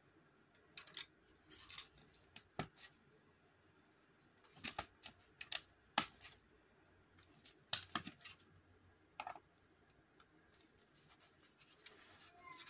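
Plastic LEGO bricks being handled, giving irregular sharp clicks and short scrapes as fingers press on the pieces and move the model.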